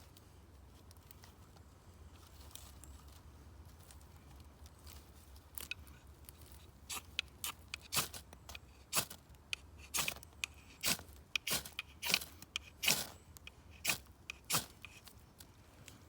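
Dry sticks being snapped by hand, most likely kindling for a campfire: a run of sharp, irregular cracks, about one or two a second, starting about six seconds in.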